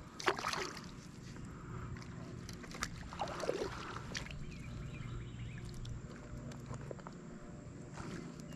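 A hooked smallmouth bass splashing briefly at the surface at the start, then faint water sounds around the kayak with scattered light clicks as the line is brought in.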